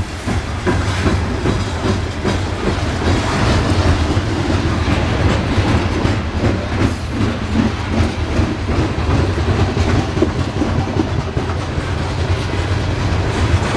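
Loaded-looking coal hopper cars of a long freight train rolling past, steel wheels clicking over rail joints over a steady low rumble.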